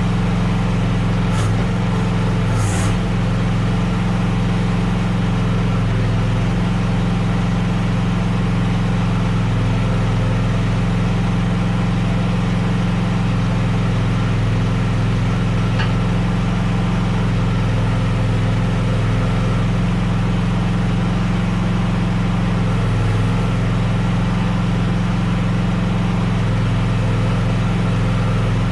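Small gasoline engine of a QK16R mini track loader running at a steady speed, with two brief knocks a second or so apart near the start.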